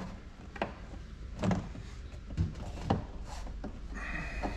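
A hand Phillips screwdriver turning screws into an RV door's window frame: a few sharp clicks and knocks as the screw bites, then a short creak near the end.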